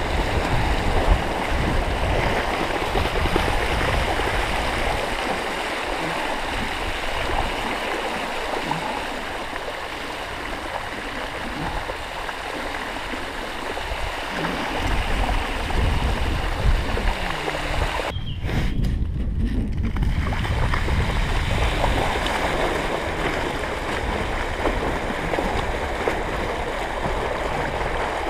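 Water splashing and sloshing as a dog swims and wades through floodwater close to the microphone, a steady churning wash. About two-thirds of the way through, the sound turns muffled for a couple of seconds.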